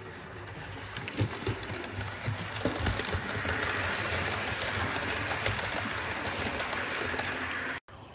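Model train running past on the layout's track: a steady motor hum and rolling rush from the wheels, with irregular clicks and knocks. It grows louder through the middle as the coaches pass close, then cuts off suddenly near the end.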